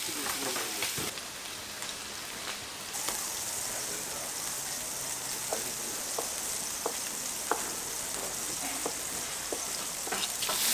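A large knife chops raw pork intestines on a wooden cutting board, with a short knock about every two-thirds of a second in the second half. Under the knocks runs a steady sizzle from a hot griddle.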